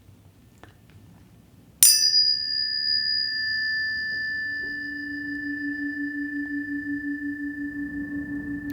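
Planetary tuning fork struck once about two seconds in, ringing with a clear high tone and faint overtones that slowly fade. About halfway a lower steady hum joins, and the sound takes on a gentle pulsing beat.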